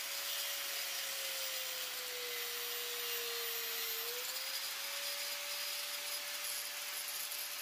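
Angle grinder with a thin cutoff wheel running and cutting through a plastic trolling-motor mount bracket, a steady whine over a grinding hiss. The pitch sags a little under load for a couple of seconds, then rises back about four seconds in as the wheel frees up.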